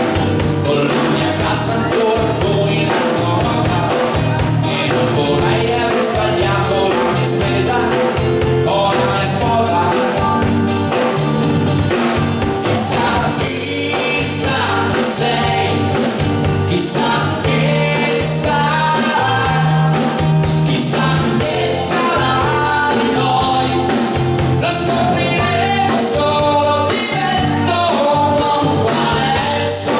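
Live band playing a rock-style song with a singer over drum kit, guitars and keyboards.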